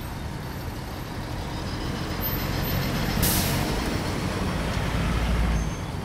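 Dense street traffic of motor scooters and cars running, with a steady low rumble. About three seconds in comes a short, loud hiss, and a deeper rumble of a heavy vehicle builds and then drops off sharply near the end.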